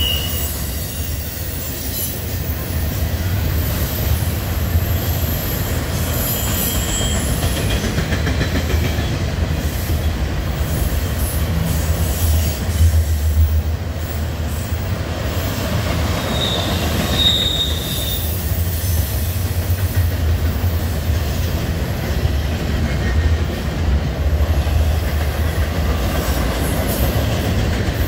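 Double-stack intermodal freight train's well cars rolling past: a steady low rumble of steel wheels on rail, with a brief high wheel squeal about sixteen seconds in.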